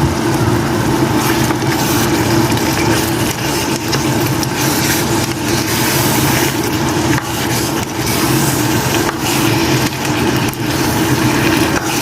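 Cooking sounds at a pot of egusi soup: irregular scrapes and knocks over a steady mechanical hum.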